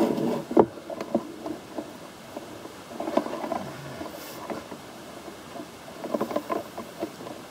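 Cables and small objects being handled and shifted on a cluttered shelf: irregular clicks, light knocks and rustling, in clusters near the start, about three seconds in, and again around six to seven seconds.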